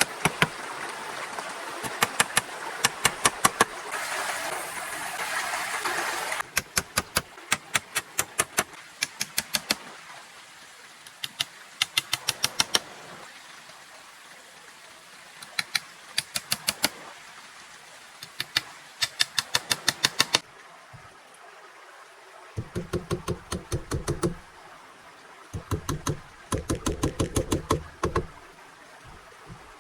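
Runs of rapid sharp knocks, several strikes a second in bursts of a few seconds, over a steady rushing noise in the first few seconds; later runs sound heavier and duller.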